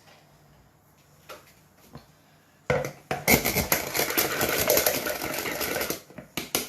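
Kitchen clatter of dishes and utensils being handled. It comes in about two and a half seconds in, runs thick for about three seconds and ends in a few separate clicks.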